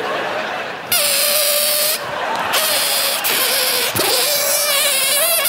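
A rubber balloon squealing as air is let out through its stretched neck: a rushing hiss under a steady squeal, broken off and restarted twice, and warbling near the end.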